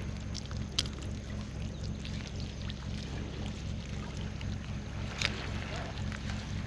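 A steady low motor-like drone with even low tones, with a couple of faint clicks.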